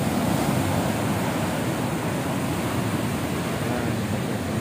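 Sea surf: waves breaking and washing in, a steady rushing noise with no single crash standing out.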